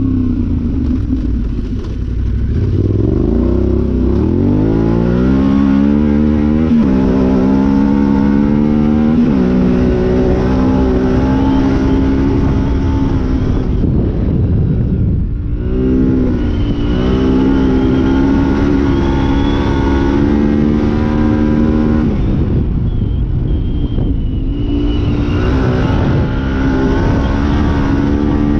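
Yamaha Ténéré 700's parallel-twin engine, breathing through an Arrow high exhaust, pulling hard under throttle. Its pitch climbs and drops back with each upshift, falls away as the throttle is rolled off near the middle and again about three quarters through, then climbs again.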